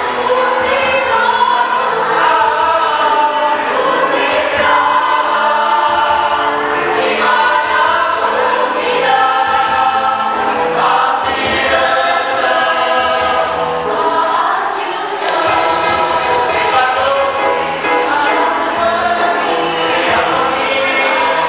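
Choir singing, several voice parts together in long held notes.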